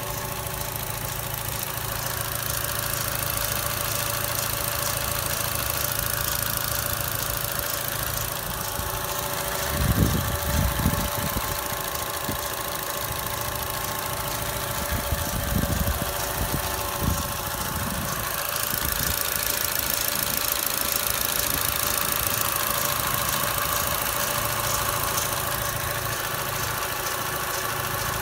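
Engine idling steadily with a rhythmic extraneous noise running through it, the unwanted knock-like sound that is the sign of a fault. A few short low rumbles come about ten seconds in and again around fifteen to seventeen seconds in.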